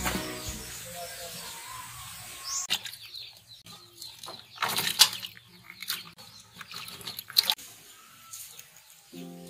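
Vegetables being dropped into and handled in a plastic basin of water in a steel sink: irregular splashes, rustles and light knocks, loudest about halfway through and again a couple of seconds later.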